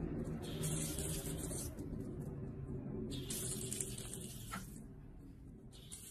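Water jetting from a garden-hose spray nozzle and splashing onto wet concrete, a steady rush with a higher hiss that comes and goes in spells.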